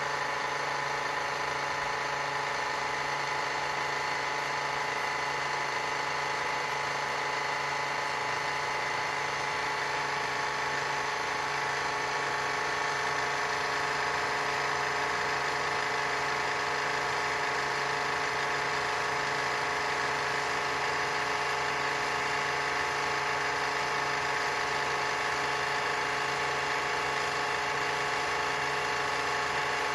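A CNC-converted general-purpose lathe running, its inverter-driven spindle turning a metal workpiece against a carbide tool: a steady hum and gear-train whine made of many fixed tones that holds level throughout.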